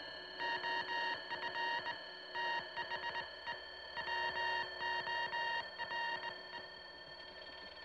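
Electronic music score: a steady drone under several high tones that sound together in runs of rapid beeps, like telephone dialing tones. The beeping stops about six and a half seconds in, leaving the drone.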